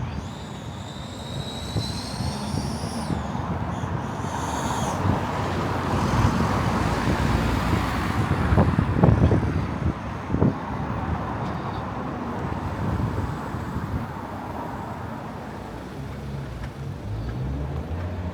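Road traffic on a town street: a vehicle passes close by, the noise building to its loudest about halfway and then fading, over steady traffic noise. Thin high tones sound in the first few seconds.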